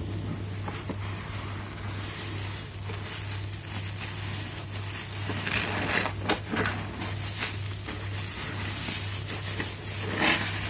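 Soapy mattress-foam sponges squeezed by rubber-gloved hands in thick suds: wet squelching and crackling of lather. Louder squishes come about six seconds in and again near the end.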